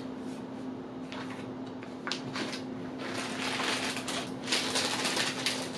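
Plastic first-aid packaging crinkling and rustling as it is handled, with scattered crackles that grow busier in the second half.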